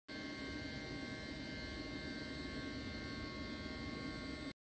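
Steady machinery hum with several constant whining tones layered over it, even in level throughout.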